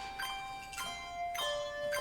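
Instrumental music: single struck notes with a bell-like ring, one about every half second, each on a different pitch.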